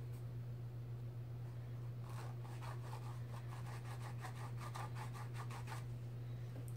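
Paintbrush scrubbing on a small canvas: a run of quick, faint, scratchy strokes, several a second, from about two seconds in until near the end, over a steady low hum.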